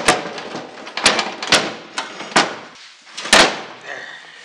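Metal clunks and scraping as a snowblower's auger housing is worked loose and split away from the engine chassis: five sharp knocks, the loudest about three and a half seconds in.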